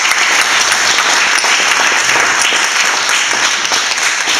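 Audience applauding: a steady, dense round of clapping.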